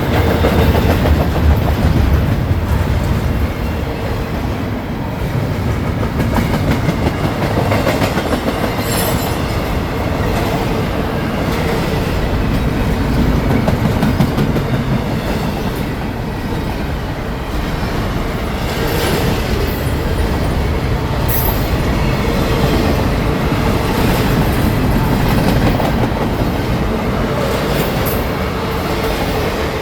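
CSX freight train's cars rolling steadily past, wheels clicking over the rail joints, with wind buffeting the microphone.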